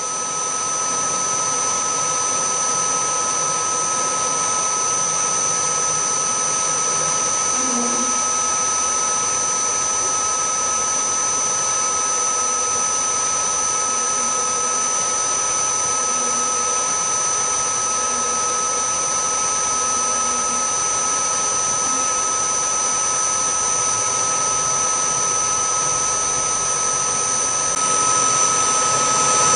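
Milling machine spindle running steadily with a constant high whine while its drill bit cuts holes in a metal dial; the sound gets a little louder near the end.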